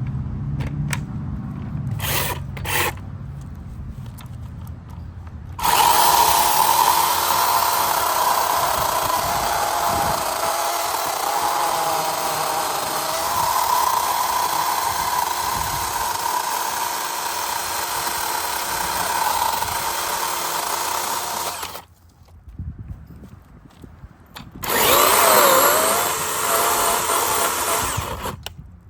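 DeWalt FlexVolt cordless chainsaw. After a few clicks it starts with a high electric whine and cuts through wood for about sixteen seconds, its pitch sagging now and then under load, then stops suddenly. It runs and cuts again for a few seconds near the end, the pitch dipping as it bites.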